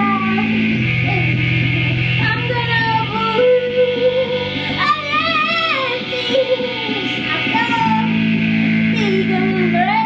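A woman singing a slow, wavering melody with vibrato and sliding pitches over held keyboard drone chords that change every few seconds.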